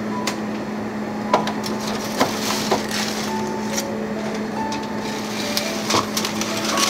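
Aluminium foil crinkling and crackling, with several sharp clicks and knocks, as foil-wrapped containers are handled on a freezer shelf. A steady low hum and a few soft, sparse music notes lie underneath.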